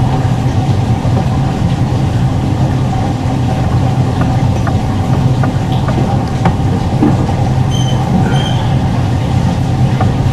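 Steady low machine hum, like a motor or engine running, with a few faint clicks scattered through it.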